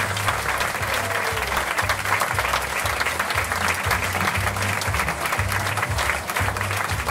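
Audience applauding over music with a pulsing bass line.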